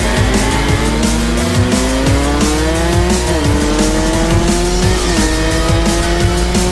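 Small-capacity two-stroke supermoto engine accelerating hard, its high-pitched note climbing and dropping sharply twice as it shifts up through the gears, over background music with a steady beat.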